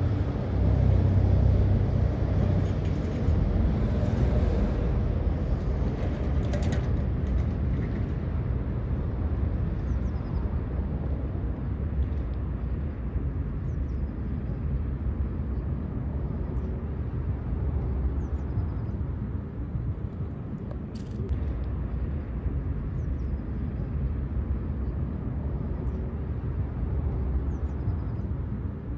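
Steady low rumble of city road traffic, a little louder in the first few seconds.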